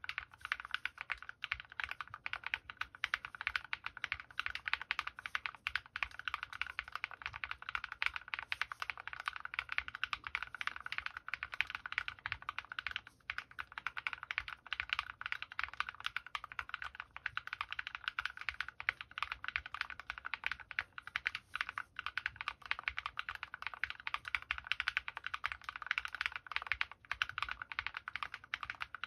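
Continuous fast typing on a Drop + OLKB Planck V6 ortholinear mechanical keyboard with lubed linear switches (MX Black housings, Kailh Red stems) and MT3 keycaps: a dense stream of keystroke clacks.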